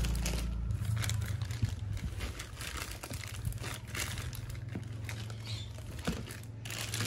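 Clear plastic packaging bag crinkling and rustling in irregular crackles as a hand handles a boxed electronic unit, over a steady low hum.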